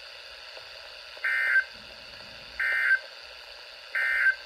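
NOAA Weather Radio on Midland receivers sending the three short data-tone bursts of the SAME end-of-message code, evenly spaced about a second and a half apart, over steady radio hiss: the signal that the tornado warning broadcast has ended.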